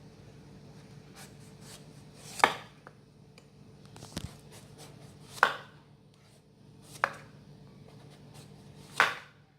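A kitchen knife paring the rind off a breadfruit: four short, sharp cutting strokes spaced a couple of seconds apart.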